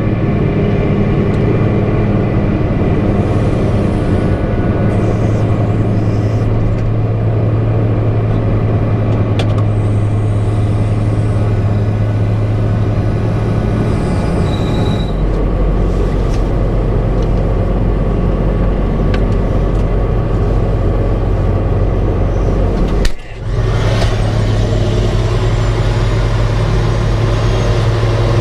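The Caterpillar diesel engine of a tub grinder running loud and steady under load, heard from inside a tractor cab. Its low drone shifts about halfway through, and the sound briefly drops out near the end.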